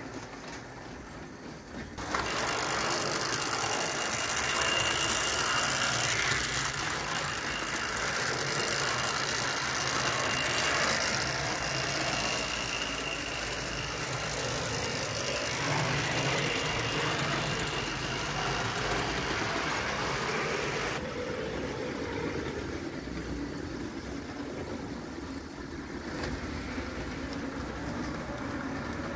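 Tinplate 0 gauge model train running on tinplate track: a steady rattling whir of wheels and mechanism. It gets suddenly louder about two seconds in and falls back about twenty-one seconds in.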